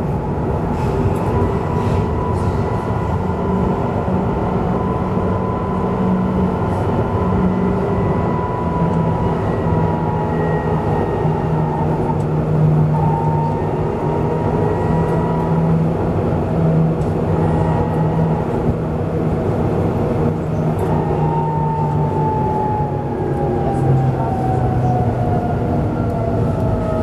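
Duewag B80D light-rail car under way: a steady rumble of wheels on rail with whining tones from the drive. In the last few seconds a whine falls steadily in pitch.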